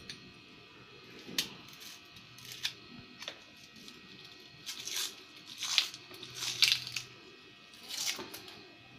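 Dry papery skin of a red onion crackling and tearing as it is peeled off with a knife, in a series of short scratchy sounds, the loudest a little past the middle.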